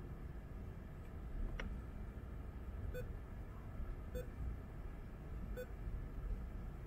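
Three short beeps from an aftermarket Android car head unit's touchscreen as it is tapped, about a second or so apart, over a low steady rumble. A single sharp click comes about one and a half seconds in.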